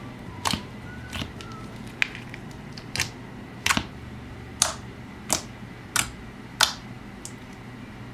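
Slime being pressed and stretched by hand, making sharp clicking pops from trapped air bubbles, about ten of them at a steady pace of roughly one every 0.7 seconds.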